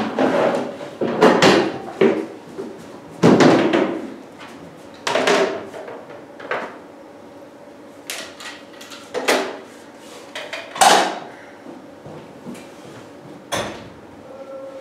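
Irregular knocks, bumps and scrapes of a stage being set: a chair carried on and set down on the stage floor, with footsteps. There are a dozen or so separate thuds, some loud, with no steady rhythm.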